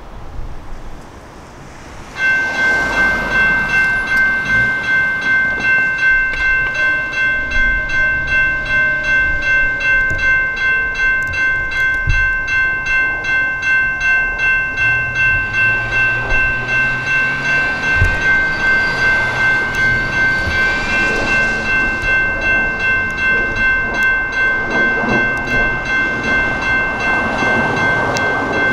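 Railroad grade-crossing warning bell that starts about two seconds in and then rings rapidly and steadily. The crossing has activated for an approaching light-rail train.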